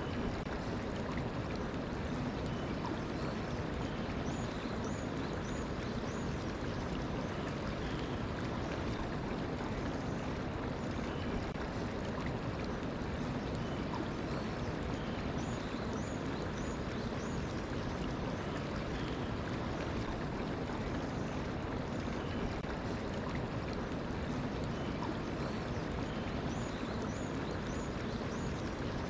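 Mountain stream flowing steadily, with small birds chirping over the water. A short high phrase of about four quick notes comes three times, roughly eleven seconds apart.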